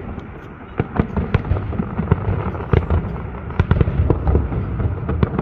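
Fireworks display: a rapid run of sharp bangs and crackles over a low rumble, growing denser and louder about three seconds in.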